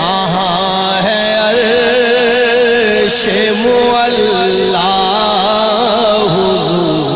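Naat recitation: a male voice sings a long, ornamented melodic line of held, wavering notes, with no distinct words.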